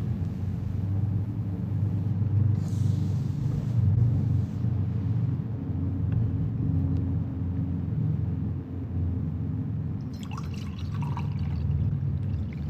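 A steady low rumble, and near the end red wine pouring from a glass carafe into a chalice.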